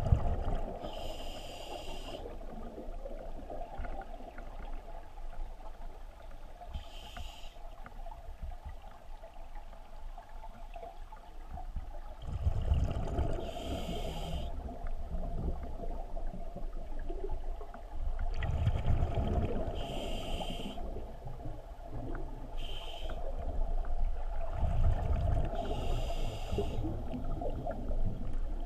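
Scuba diver breathing through a regulator underwater: a short hiss with each breath every few seconds and low rumbling bubbles on the exhale, over a steady underwater hum.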